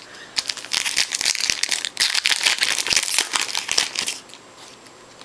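Foil trading-card pack wrapper crinkling as hands work it open, a dense run of crackles from about half a second in until about four seconds in.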